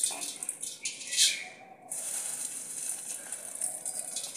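Dry vermicelli broken by hand and dropped into a hot metal pot for roasting, the strands rattling and pattering onto the metal, loudest about a second in, over a steady high hiss.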